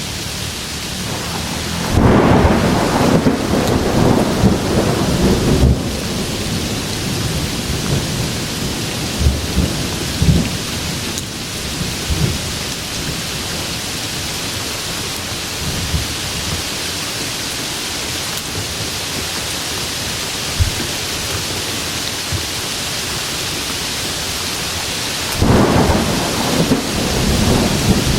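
Steady heavy rain with thunder rumbling twice: a long rumble a couple of seconds in and another near the end.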